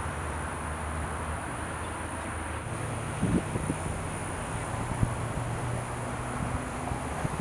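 Steady low engine hum, with a few short knocks a little over three seconds in and again about five seconds in.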